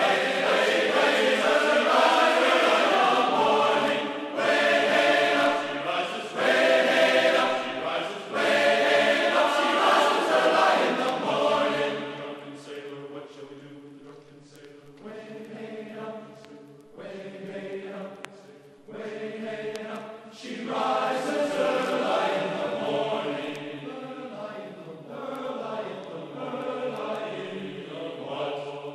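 Background music of choral chanting: voices holding long sung notes in phrases, fuller for the first dozen seconds and softer after.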